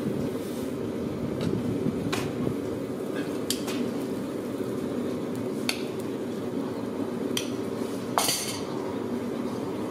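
A farrier's metal tools sharply clinking against a horseshoe and hoof during shoeing, about five separate, irregularly spaced strikes. The loudest comes near the end. A steady low rumble runs underneath.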